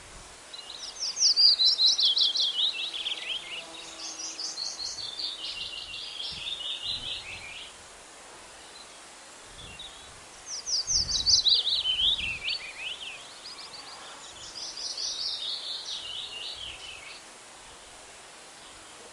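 A songbird singing two long songs, each a rapid string of notes falling in pitch. Each song opens loudest, then runs on more softly in a second falling trill, lasting about seven seconds in all. The first song starts about a second in, the second just after the midpoint, over a steady outdoor hiss.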